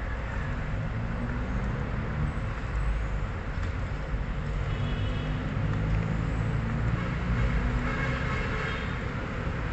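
Steady low rumble of vehicle traffic, with faint brief tones about halfway through and near the end.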